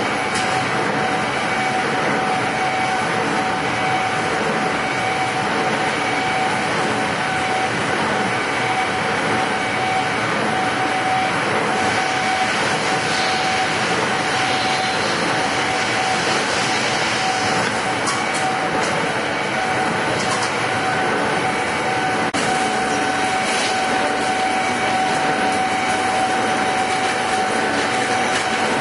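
Heavy metal-working lathe running under load: a dense, steady machine noise with a constant high whine over it.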